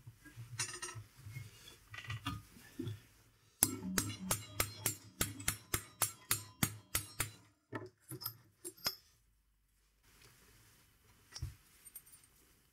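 A steel hammer beating a strip of thin sheet steel against a small steel block, bending it into a home-made angle-grinder guard. Light clatter of handling comes first, then a run of about fifteen quick, ringing metal strikes at roughly four a second, then a few single taps.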